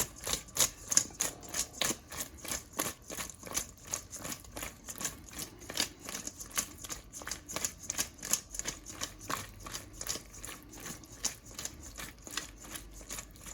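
A utensil clicking repeatedly against a bowl as crispy fried chicken and shrimp are tossed in sauce, about three sharp clicks a second.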